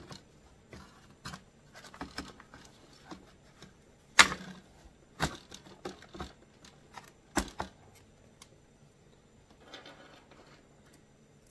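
Irregular clicks and knocks of hard plastic parts and small tools being handled as a leaf blower's plastic cover is fitted back on, with a few sharper knocks about four, five and seven seconds in.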